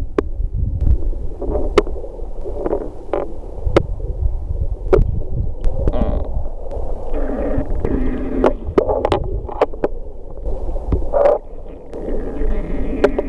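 Underwater noise picked up by an action camera in its waterproof housing: a low rumble of moving water with many scattered sharp clicks. A faint drone of several steady tones comes in about halfway and again near the end.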